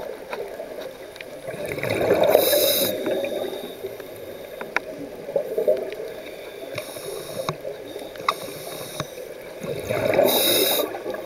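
Scuba diver breathing through a regulator, heard underwater: two long bubbling exhalations, about two seconds in and again near the end, with a shorter hiss between them.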